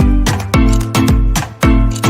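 Background music with a steady, upbeat beat.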